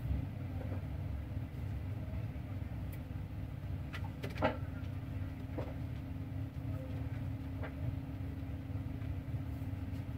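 Steady low background rumble with a faint steady hum, and a brief faint sound about four and a half seconds in.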